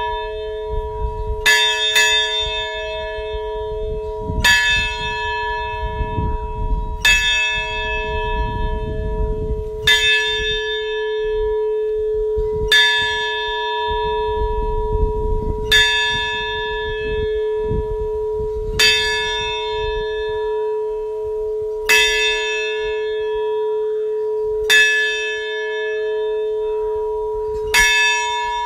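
Large bell in an open bell tower being tolled slowly, struck about once every three seconds, with a quick double stroke near the start. Each stroke rings on in a long, steady hum that carries over into the next.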